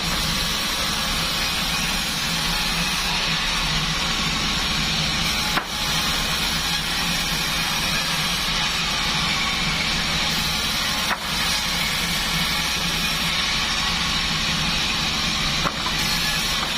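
Large band sawmill running steadily with a low hum and a hiss, its blade sawing durian wood. Three brief clicks, each with a short dip, come about five seconds apart.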